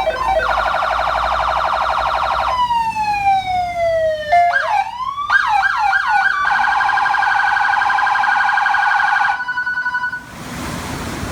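Electronic vehicle siren cycling through its tones: a fast warble, a long falling tone, a run of quick rising whoops, then another fast pulsing tone and a brief steady tone, cutting off about ten seconds in. A steady rushing noise follows.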